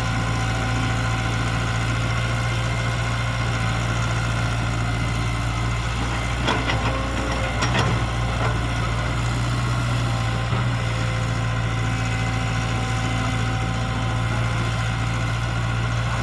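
E120B hydraulic excavator's diesel engine running steadily, with a few short knocks about halfway through.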